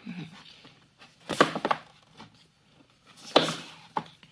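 Cardboard board books on a shelf being tilted forward and let fall back, knocking against each other and the shelf: a cluster of knocks about a second and a half in, another around three and a half seconds, then a short tap.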